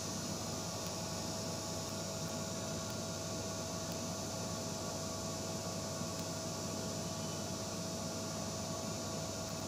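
Steady electrical hum with an even hiss, a constant room tone with no distinct events.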